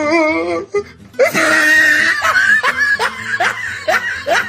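Loud, hearty human laughter: a wavering voiced sound at first, then a shrill burst about a second in, then a run of quick rising 'ha' bursts.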